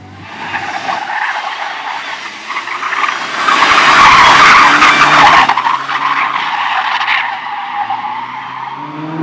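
Slalom race car sliding through the course: tyres squealing and skidding with the engine running hard. The tyre noise builds to its loudest about halfway through and then cuts off suddenly, leaving the engine's note.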